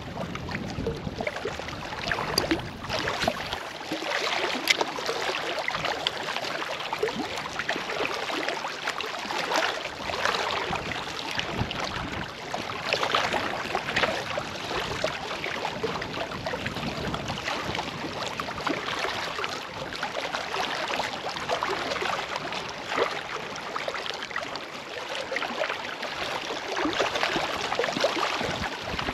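Small waves lapping and splashing against shoreline rocks, an irregular ongoing wash of water.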